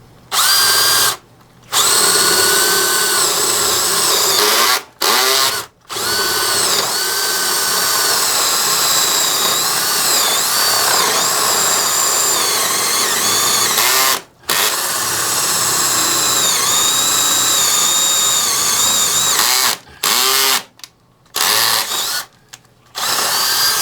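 Electric power drill boring a hole for wiring, running in long runs broken by brief stops, its motor pitch wavering as it loads up. It finishes with a few short bursts just before it breaks through.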